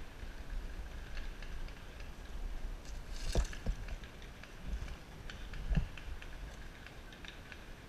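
Footsteps and rustling of leafy brush as a person walks through woods, with scattered light clicks and two louder thumps, about three and a half and six seconds in.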